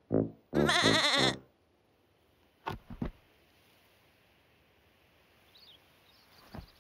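Cartoon sheep bleating: a short call, then a long wavering baa lasting under a second.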